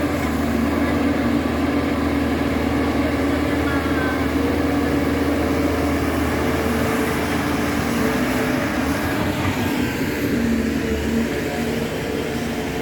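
Backhoe's diesel engine running steadily as it digs, with a steady low drone; its note shifts a little about nine seconds in.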